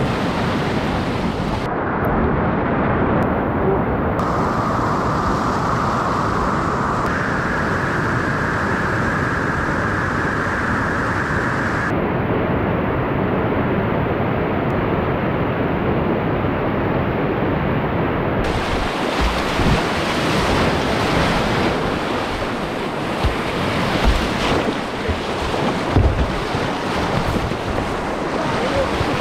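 Whitewater rapids rushing loudly and steadily around a kayak, with wind buffeting the microphone. A few short thumps come in the later part.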